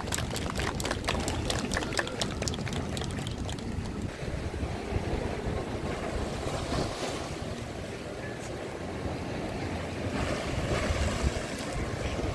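Sea surf washing and splashing against a concrete shoreline, under heavy wind rumble on the microphone. A quick run of faint clicks sounds in the first few seconds.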